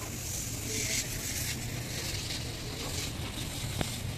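Steady background noise at a street food stall, a low hum under a hiss, with one sharp click near the end.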